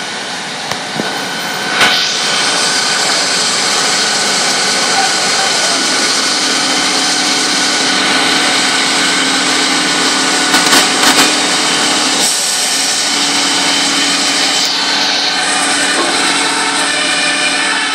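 Loud, steady machine noise from fire-service equipment, beginning with a knock about two seconds in and carrying a steady low hum through the second half.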